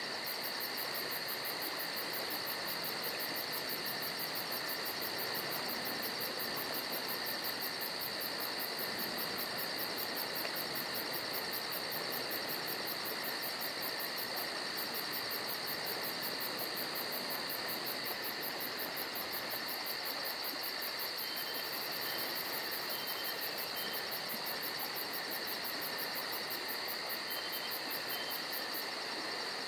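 Steady chirring insect-like chorus with a fast, even high pulsing, with a few faint brief chirps about two-thirds of the way through.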